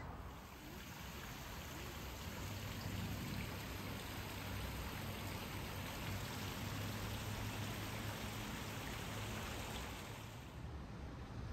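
Steady hiss of running or falling water, even across low and high pitches, cutting off suddenly near the end.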